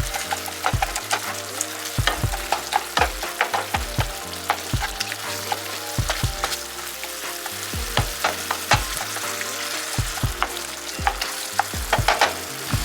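Ground beef frying with onion and garlic in a pan, sizzling steadily, while a utensil stirs and scrapes it, knocking against the pan many times.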